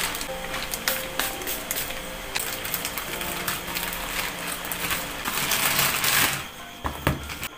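Plastic courier mailer bag crinkling as it is handled and cut open with scissors, a dense run of crackles and snips that thins out near the end, with a few sharper clicks as the boxed item is pulled out.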